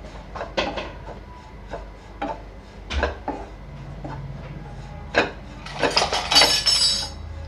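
A spatula scraping and knocking against a nonstick kadhai in irregular strokes as desiccated coconut is stirred while it dry-roasts. About six seconds in comes a quick run of metal utensils clinking, with a brief ringing.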